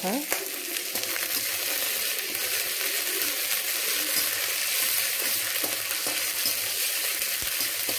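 Urad dal, chana dal and dried red chillies roasting in a little oil in a stainless steel kadai, with a steady sizzling hiss. A perforated steel ladle stirs them, scraping the pan with light clicks.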